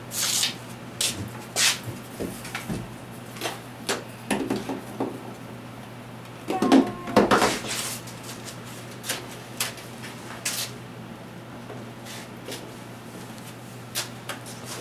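Intermittent knocks, clicks and scraping as model railroad scenery is pulled apart and handled, with a louder burst of scraping and knocking about seven seconds in.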